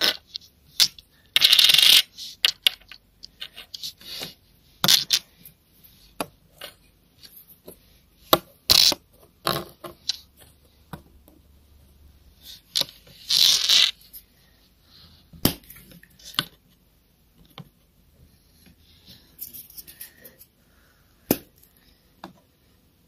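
Handling noises: scattered clicks and taps of small objects being moved about, with two short rustling hisses, one about two seconds in and one near the middle.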